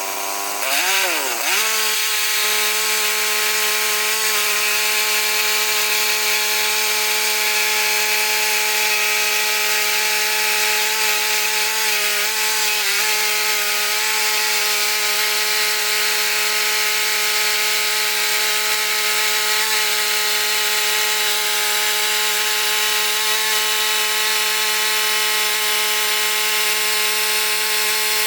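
Bandsaw sawmill with a Ripper 37 7-degree band blade cutting through a white oak log: a steady engine note under a loud rasping sawing noise. The engine pitch dips sharply about a second in and then recovers, holding steady for the rest of the cut.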